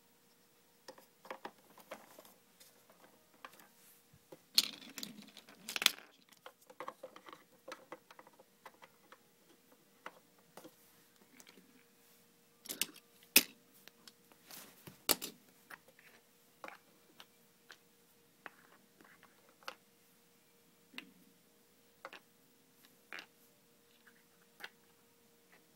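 Small plastic toy pieces, the playset's oil drums and traffic cones, clicking and knocking as they are handled and set down on a wooden floor. Scattered light clicks, with louder clattering about five seconds in and again around thirteen to fifteen seconds.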